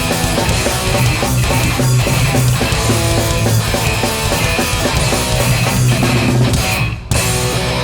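Hardcore punk band playing live and loud: distorted electric guitars, bass and drums. About seven seconds in the band breaks off for an instant, then the guitars carry on without the cymbals.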